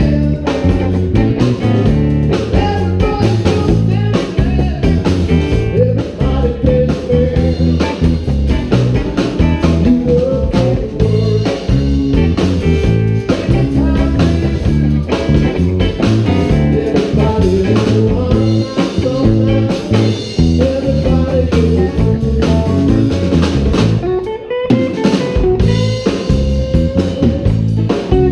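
Live blues band playing: an electric guitar lead on a Telecaster with bent, sliding notes over electric bass and drum kit.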